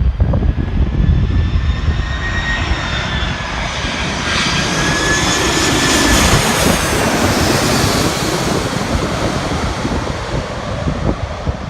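Jet airliner passing low overhead. Its engines make a rushing roar with a high whine that slowly drifts down in pitch, growing loudest about halfway through and then fading.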